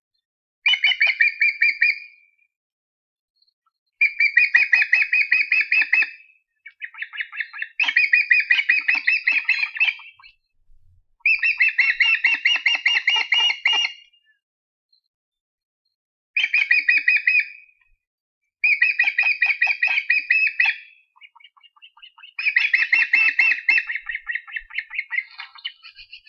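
Osprey calling: seven bouts of rapid, high chirps, each bout a quick run of notes lasting about two seconds, with short pauses between.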